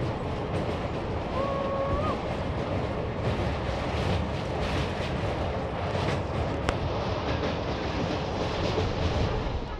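Train running across a steel truss bridge, heard from the coach with wind rushing over the microphone: a steady noise with scattered clicks from the wheels and track. A brief steady tone, rising slightly at its end, sounds about a second and a half in.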